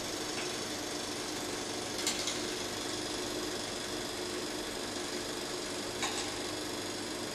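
Film projector running: a steady mechanical whir, with a brief click about two seconds in and another about six seconds in.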